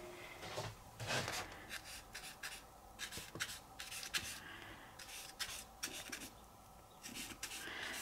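A paintbrush dabbing and brushing white paint onto a large sheet of paper in short, irregular strokes, faint, with a brief pause near the end.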